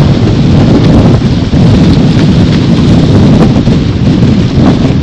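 Heavy wind buffeting on a boat-mounted camera microphone as a Multi50 racing trimaran sails at speed, over the rush of water along the hull. It is a loud, steady rumble with no let-up.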